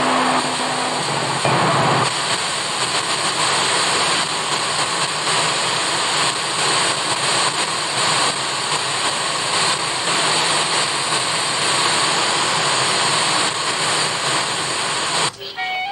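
Analog television static: a steady, even hiss of noise from a set tuned between channels. It cuts off suddenly near the end as a channel with music comes in.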